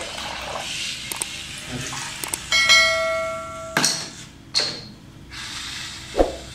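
Subscribe-button animation sound effects: a bright bell chime rings for about a second, starting a little over two seconds in. Several short sharp clicks and swishes come around it, the last near the end.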